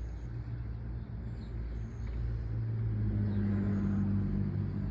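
A motor vehicle's engine running with a steady low hum that grows louder about halfway through.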